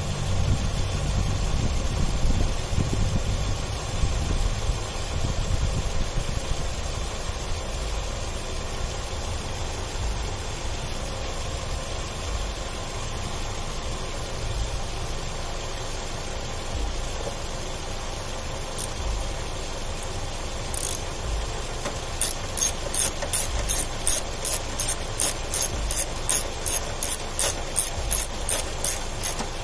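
Toyota Camry engine idling steadily while it warms to operating temperature after a coolant change. In the last several seconds a run of sharp clicks, about three a second, comes in over it.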